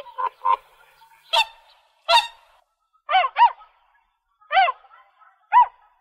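Swan honking: a run of short honks, several in close pairs, each rising then falling in pitch.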